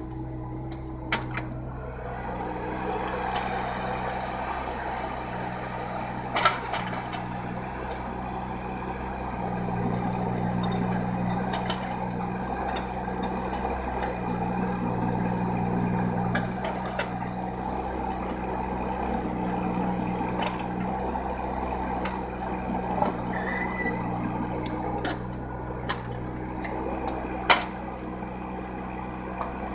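John Deere mini excavator's diesel engine running steadily, swelling and easing as the hydraulics work the boom and bucket. A few sharp clanks and knocks come now and then, the loudest about six seconds in and near the end.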